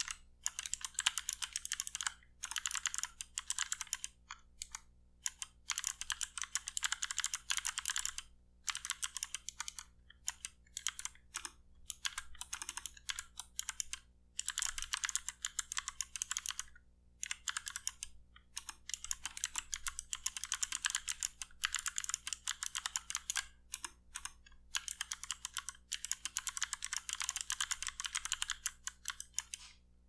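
Typing on a GMMK mechanical keyboard fitted with clicky Kailh Bronze (thick gold) speed switches and pudding keycaps: fast runs of sharp key clicks broken by short pauses, stopping at the end.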